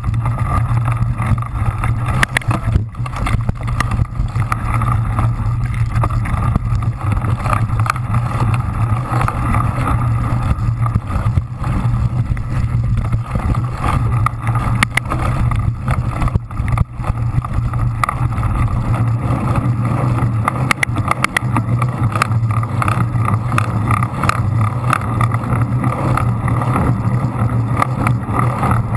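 Wind rush and rolling vibration picked up by a camera mounted on a cyclocross bike riding fast over dirt and sand, a steady low drone with scattered knocks from bumps.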